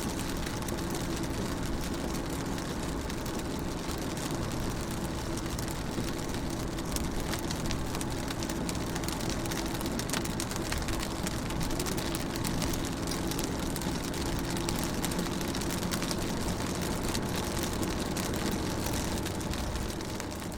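Raindrops pattering on a car window, heard inside a moving car, over the steady hum of the car's engine and road noise.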